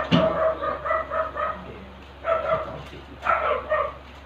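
A dog barking in three quick runs, each several short barks in a row.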